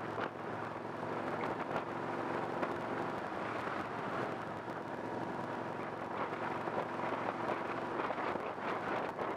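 Steady engine hum and tyre and road noise from a vehicle being driven, heard on board; the engine's tone changes about eight seconds in.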